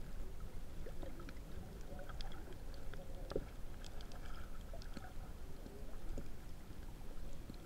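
Muffled underwater sound of shallow sea water around a submerged camera: a steady low rumble and sloshing, with scattered small clicks and ticks.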